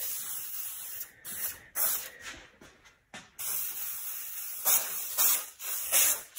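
Handheld aerosol paint sprayer hissing in several bursts of about a second each, with short breaks between them, as paint is sprayed onto a plastic console.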